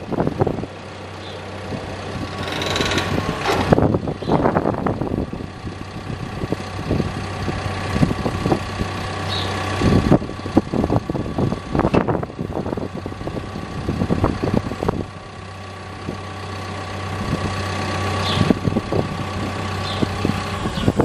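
Caterpillar D5K crawler dozer's diesel engine running while the blade is raised, lowered and angled on its hydraulics. The engine note swells and eases under the hydraulic load, with scattered knocks and clunks. This is the blade being cycled to work the hydraulic fluid through the system during start-up.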